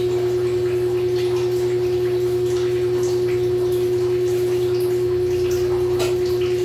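Small electric fan running close by: a steady hum with one strong, unchanging tone. Faint scrapes and clinks of a spoon stirring a pan sit under it, with one sharper clink about six seconds in.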